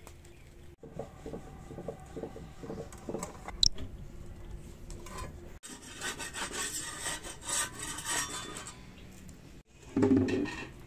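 Kitchen sounds around an iron tawa, in short cuts: scraping and knocking with one sharp click a few seconds in, then a hissing fry with a metal spatula scraping over a paratha on the tawa. Near the end comes a louder knock at a clay cooking pot with a ladle in it.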